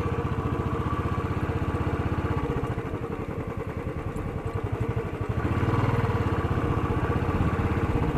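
Royal Enfield Classic 350's single-cylinder engine running at steady riding speed, a continuous run of even firing beats. It swells louder for a couple of seconds past the middle.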